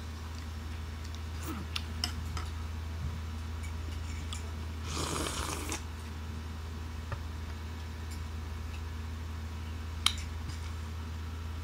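Close-up eating sounds: light clicks of a spoon against a bowl and mouth noises, with a second-long slurp of fruit salad liquid drunk straight from the bowl about five seconds in, and a sharp click near the end. A steady low hum runs underneath.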